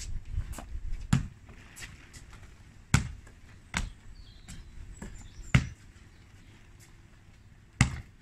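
A basketball bouncing on stone paving slabs, mixed with trainer footfalls and jump landings. The bounces come singly at uneven intervals, and the loudest thuds are about three seconds in and five and a half seconds in.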